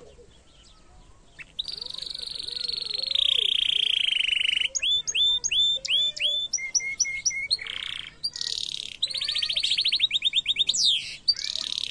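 Domestic canary singing. After a quiet second and a half it gives a long rolling trill that slowly falls in pitch, then a run of repeated swooping notes and some short lower chips. Near the end comes another fast trill that ends in a falling whistle.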